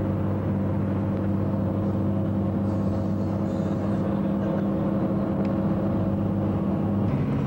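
A road vehicle's engine running at a steady cruise with tyre and road noise, heard from inside the moving vehicle; the engine's pitch shifts slightly near the end.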